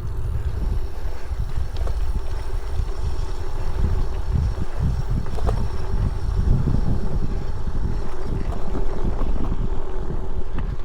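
Wind buffeting the camera's microphone while cycling, a loud low rumble, with a faint steady hum underneath.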